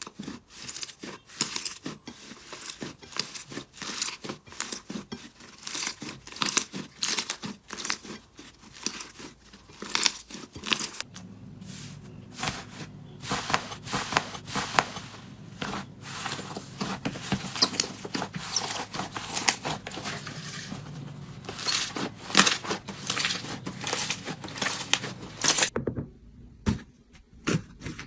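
Slime being squished and stretched, a dense, uneven run of sticky pops and crackles, broken off briefly near the end.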